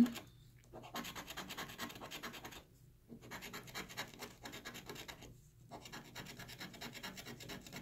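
A coin scraping the coating off a paper scratch-off lottery ticket in quick, soft strokes, in three spells with brief pauses between.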